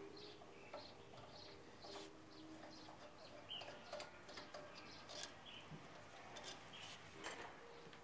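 Near silence, with a few faint metallic clicks as a 1/4-inch socket is turned by hand and the ignition coil bolts are worked out of a riding mower engine. Faint bird chirps can be heard.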